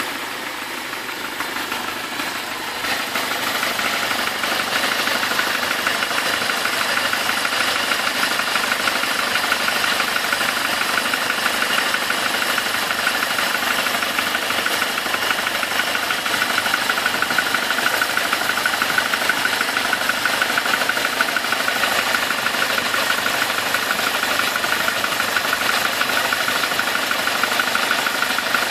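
Chevrolet Omega 2.0 four-cylinder engine running with a fast, steady metallic ticking rattle, a little louder after the first few seconds. The owner suspects detonation knock ('batendo pino') in this high-mileage engine of 300,000 km.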